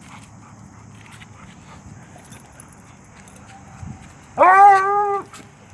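Low outdoor background with faint scattered sounds, then about four and a half seconds in a person's loud, drawn-out shout, held on one pitch for almost a second, calling a dog.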